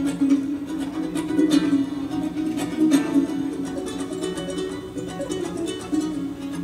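A small lute-like string instrument played solo, plucked and strummed fast over two low notes that ring on steadily as a drone, in an Ossetian tune.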